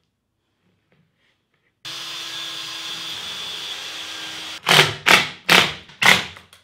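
Cordless drill driving screws through a plywood panel into its timber frame: four short, loud bursts in quick succession near the end, over a steady background hum.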